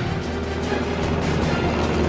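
Background music score with a steady low drone that swells slightly a moment in.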